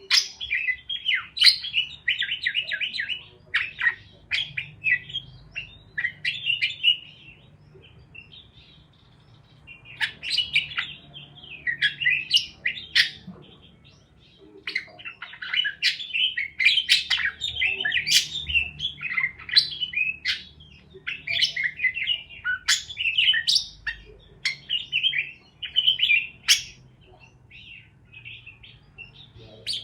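Parakeets chirping and chattering in quick, busy runs of high chirps, broken by a couple of short lulls.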